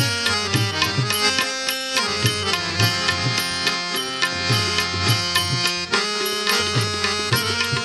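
Instrumental interlude of a Gujarati devotional bhajan: a hand drum of the tabla kind plays a steady rhythm of low, bending bass strokes under a sustained melodic instrument line, with no singing.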